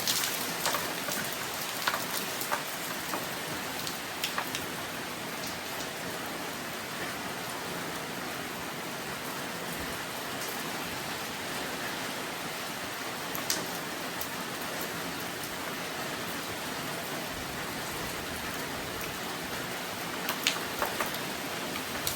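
Steady rainfall, an even hiss of rain with scattered louder drip ticks, a few near the start, one about two-thirds of the way in and a cluster near the end.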